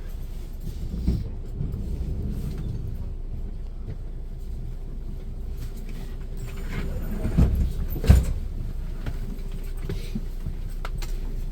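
Train running along the track: a steady low rumble with a few sharp knocks, the loudest about eight seconds in.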